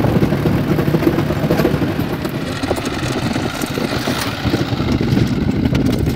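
Mahindra Yuvo 415 DI tractor's diesel engine running steadily while the tractor moves along on steel rail wheels.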